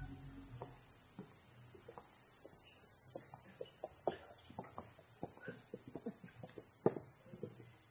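Steady high-pitched buzzing of a summer insect chorus, rising a little about three and a half seconds in, with scattered light ticks and taps beneath it.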